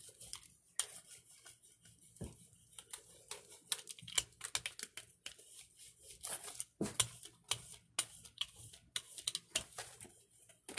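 Rubber brayer rolling paint across a Gelli gel printing plate: an irregular crackle of many small sticky clicks, coming in clusters as the roller is worked back and forth.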